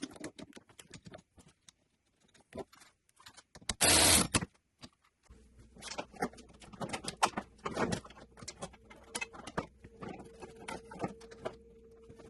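Irregular clicks and clatter of hand tools and cable being handled while removing a nut and fitting the main power and ground cables. There is a brief loud rustling burst about four seconds in, and a steady low hum starts about five seconds in.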